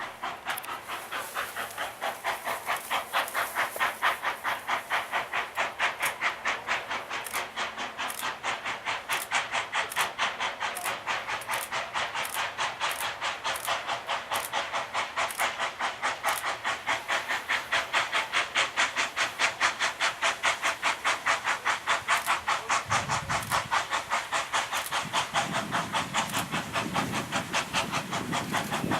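Florence No. 2 steam locomotive working slowly up a steep bank, its exhaust chuffing in an even beat of about three a second. A low rumble joins in near the end.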